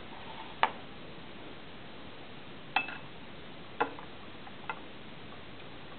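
A few sharp clicks and taps, four in all at uneven intervals, the first the loudest, as a 9V battery on wire leads is put into a glass jar of salt water and knocks against the glass, over a faint steady hiss.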